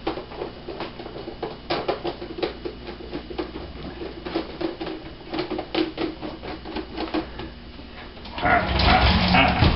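Irregular clicks and rustles as food packages and jars are handled on a tabletop. A louder, short voice-like sound comes near the end.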